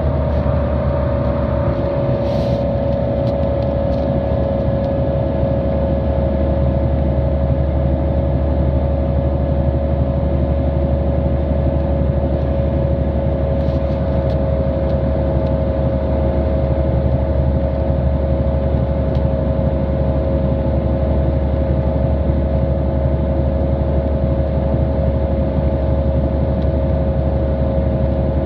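City transit bus running at a steady speed, heard from on board: a loud, even engine and driveline drone with a high whine held at one pitch, and a couple of faint rattles.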